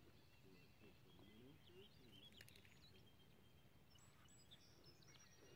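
Near silence: faint outdoor ambience with thin, high bird chirps and calls in the second half.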